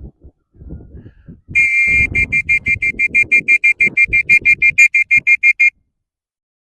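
An electronic beeper: one held high beep, then rapid, even beeping about six times a second for three and a half seconds, stopping suddenly.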